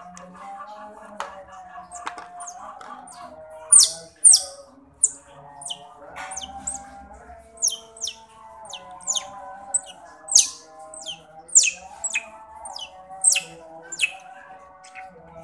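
Baby otter giving short, high-pitched chirps that fall in pitch, about two a second, while it sucks milk from a feeding bottle.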